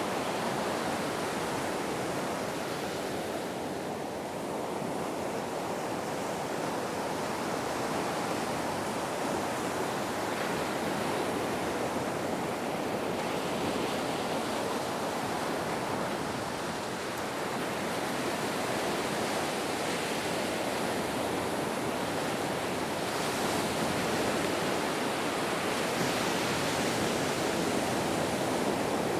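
Ocean waves breaking and washing in a continuous surf, swelling and easing gently in loudness.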